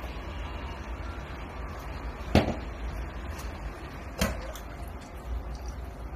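Glassware knocking sharply on a tabletop twice, about two seconds apart, the first the louder, while water is poured from a jug into a glass beaker and then from the beaker into a stainless steel tray.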